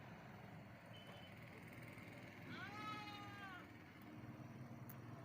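A single animal call, about a second long, that rises slightly and then falls in pitch, over a faint low hum.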